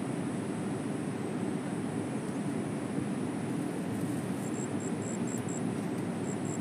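Steady rush of a flowing river, an even low noise with no breaks.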